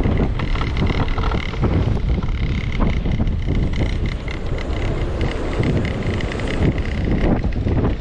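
Strong gusting storm wind buffeting the microphone: a loud, uneven rumble that rises and falls with the gusts, with a thin steady whistle through the first half.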